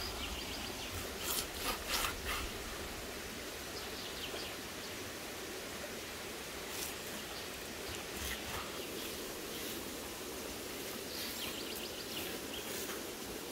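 Kitchen knife cutting raw beef and fat on a wooden cutting board, with a few sharp knocks of the blade on the board about one to two seconds in. Steady outdoor background noise throughout.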